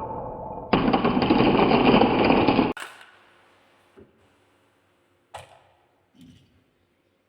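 Marbles rolling and rattling down a marble run track, turning into a loud dense clatter that cuts off suddenly under a third of the way in, followed by three single faint clicks.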